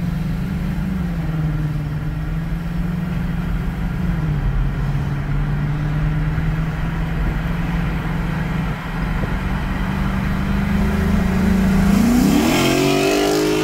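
Lexus IS F's 5.0-litre V8 engine and exhaust running at a steady cruise, then revving up with a rising pitch about twelve seconds in as the car accelerates.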